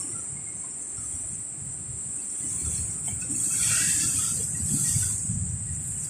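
Sea surf surging in among coastal rocks, with a low rumble underneath. A rush of foaming water builds about three seconds in and eases near the end. A steady high hiss runs throughout.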